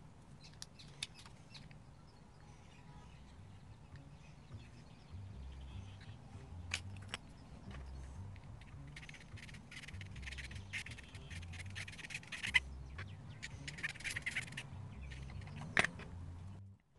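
Faint scattered clicks and short stretches of scraping from hands working on small plastic toy-car parts, with a louder click near the end before the sound cuts off abruptly.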